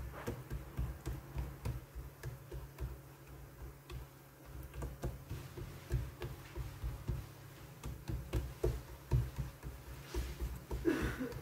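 Hands patting and pressing oiled dough flat on a bamboo cutting board: a run of soft, irregular taps and pats.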